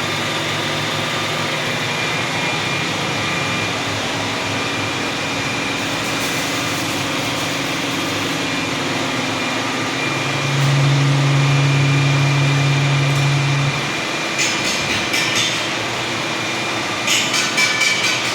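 WMW Union BFK 110 CNC horizontal boring machine running with a steady mechanical hum. A louder low hum comes in for about three seconds midway, and rapid rattling clatter starts near the end.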